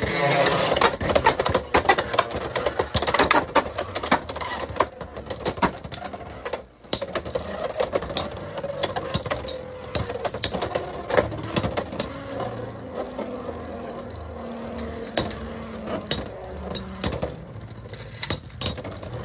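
Two Beyblade X spinning tops whirring against each other in a plastic Xtreme Stadium, with rapid clacks of plastic striking plastic as they collide. Under the clacks runs a steady whir whose pitch sinks slowly as the tops lose spin.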